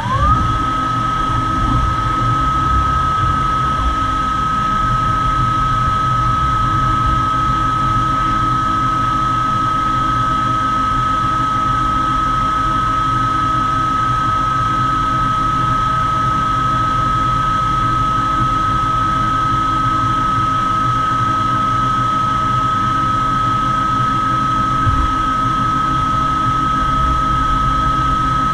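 DMG CTX gamma 3000 TC turn-mill machining center running: a spindle's high whine rises at the very start, settles at a steady pitch and holds there, over a steady mechanical hum and hiss.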